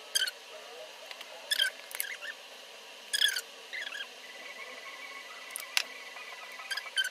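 Short, high-pitched squeaks, about eight in irregular spacing, from a makeup brush being rubbed across the skin of the face and neck.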